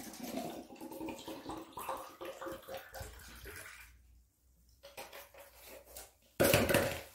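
A drink being poured off-camera, faint, likely into a paper cup, with a short loud noise about six and a half seconds in.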